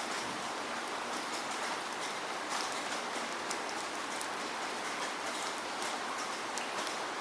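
Steady rainfall: an even hiss of rain with many individual drops ticking as they land on surfaces.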